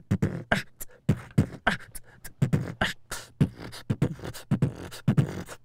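Human beatboxing into a close handheld microphone: a steady beat of deep bass-drum and sharper snare sounds made with the mouth, about three to four strokes a second.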